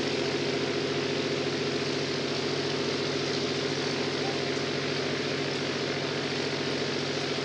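Zero fighter Model 22's Pratt & Whitney radial engine idling steadily on the ground, a constant, even, pulsing run.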